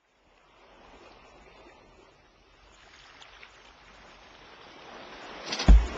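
A wash of noise like sea surf that slowly swells, then a loud, deep thump near the end as the music begins.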